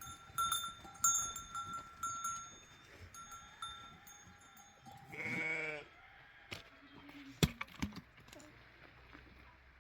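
Bells on grazing livestock ringing off and on, then one long wavering bleat about five seconds in. A couple of sharp knocks come near the end.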